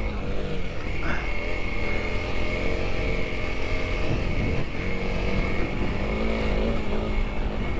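Honda CRF300L's single-cylinder engine pulling in second gear, its revs rising and falling a few times with the throttle.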